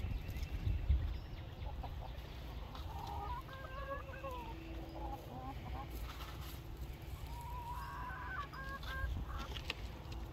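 Backyard chickens clucking in two short runs of calls, one about three to five seconds in and another about eight seconds in, over a low steady rumble.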